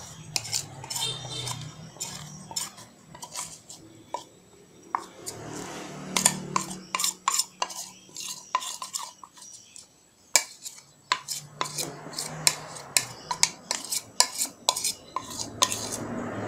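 Ceramic bowls clinking and scraping as thick settled cassava starch is tipped and scraped from one bowl into another holding grated cassava pulp. The clinks are sharp and irregular, coming thickest in the middle and second half.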